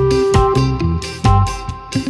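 Background music led by a plucked guitar, with steady rhythmic notes.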